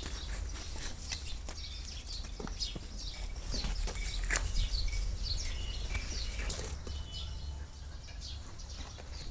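Small birds chirping over and over in short high calls, with scattered clicks and knocks and a steady low rumble underneath.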